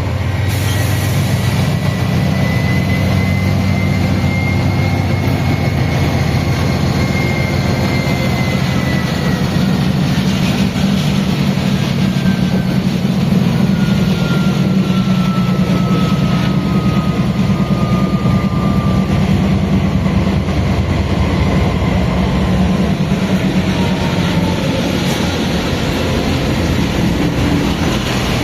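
GE C44-9WM (Dash-9) diesel-electric freight locomotive running with a steady low drone, over which the GE752AH traction motors whine. The whine rises a little in pitch over the first few seconds, then falls slowly and steadily for the next fifteen or so.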